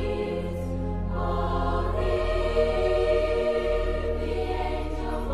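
Background music: slow choral Christmas music with held chords that change about every second.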